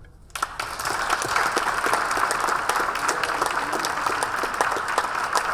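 Applause from many people clapping, starting abruptly a moment in and holding steady.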